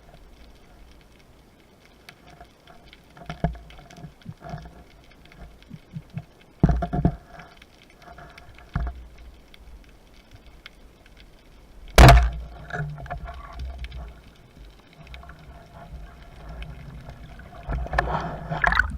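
Muffled underwater sound with scattered clicks and knocks, a few heavy thumps about seven seconds in, and one sharp, very loud crack about twelve seconds in, followed by low rumbling water noise that grows louder near the end.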